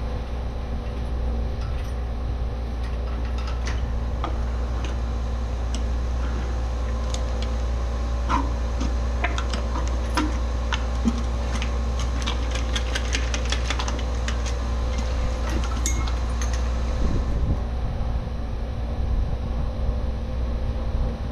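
Steady low mechanical hum that runs throughout, with many light clicks and rattles scattered through the middle of the stretch.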